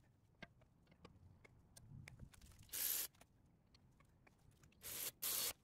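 Faint clicks and two short scraping rustles as a front brake caliper is worked back over new pads onto its bracket by gloved hands.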